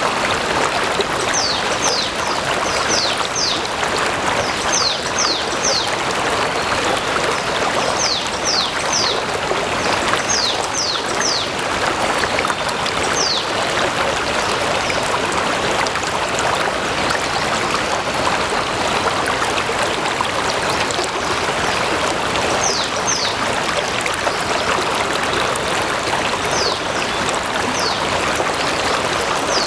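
Stream water flowing steadily, with short high falling chirps in runs of two to four now and then.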